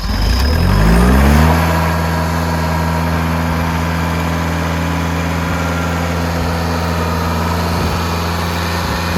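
Skid steer engine starting up, its speed climbing for about a second and a half before it settles into a steady idle.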